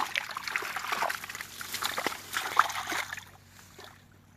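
Water splashing and trickling: many small splashes and drips that die away about three seconds in.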